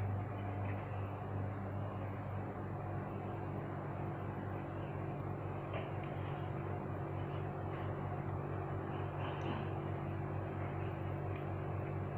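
A mains-powered electrical device starts abruptly and hums steadily over an even hiss, with a low buzz and several overtones above it.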